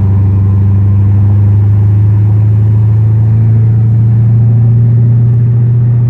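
Car running at highway speed, heard from inside the cabin: a steady, loud low engine and road drone that edges slightly higher in pitch over the last few seconds.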